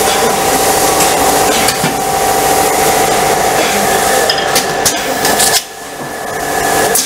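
Manual tray sealing and cutting machine running with a steady mechanical hum and hiss, with clicks and clatter as its tray is pulled in by the handle. The noise drops away abruptly about five and a half seconds in, then builds back up.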